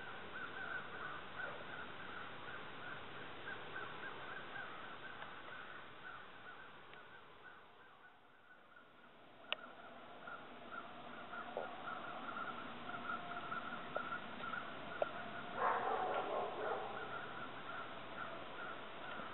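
Outdoor ambience with a steady high, pulsing chirr, a few light taps, and a louder harsh call from a crow cawing about sixteen seconds in.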